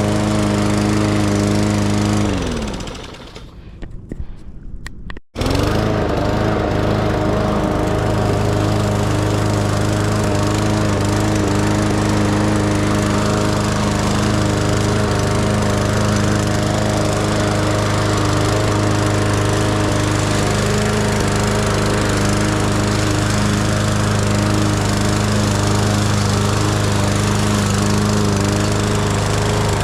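Lawn mower engine running steadily. About two seconds in it winds down with a falling pitch, then comes back suddenly at full speed about three seconds later and runs on evenly.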